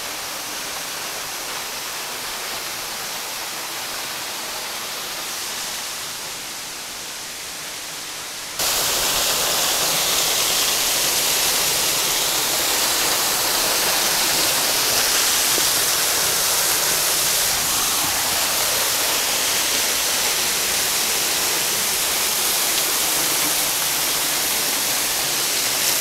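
Cucumber Falls waterfall: a steady rush of falling water. It jumps suddenly louder about eight and a half seconds in and stays loud.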